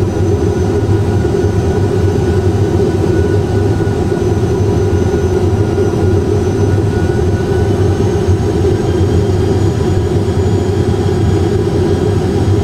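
Steady cockpit noise of an Airbus A320 full flight simulator on approach: simulated engine and airflow rumble with a faint whine drifting slightly in pitch.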